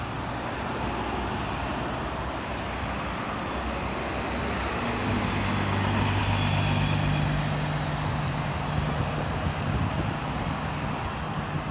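Road traffic passing. About halfway through, a bus drives by close, its tyre noise swelling, with a steady low engine hum.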